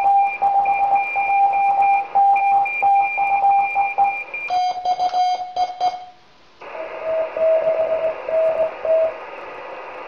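Morse code (CW) tones from an amateur radio, keyed on and off in dots and dashes. About four and a half seconds in the pitch drops a little. After a brief pause, a lower tone is keyed over steady receiver hiss until about nine seconds in, and then only the hiss remains.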